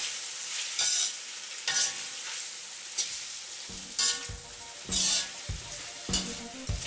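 Chicken and vegetables sizzling in a hot wok while a metal ladle stirs and tosses them, scraping and clinking against the wok about once a second, coating the stir-fry in the thickening sauce. From about halfway, dull low thumps come in between the strokes.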